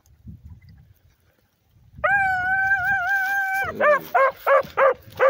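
Beagle hound giving tongue on a rabbit track: about two seconds in, one long drawn-out howl, then a run of short bawls at about four a second.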